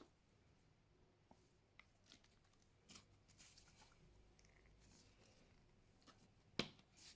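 Fluffy slime being handled: faint, scattered sticky crackles and small clicks, with one sharper click about six and a half seconds in.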